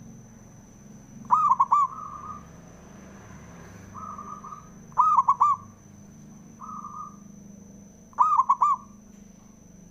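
Zebra dove (perkutut) song: three loud phrases, each a quick run of hooked cooing notes, repeating about every three and a half seconds, with softer short coos in between. A steady faint high-pitched whine runs under it.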